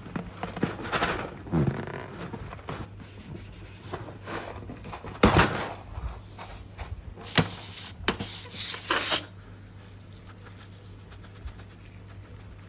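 Slime and its add-ins being squeezed, stirred and handled: irregular wet, crackly squishing with a few sharp clicks, dying down after about nine seconds.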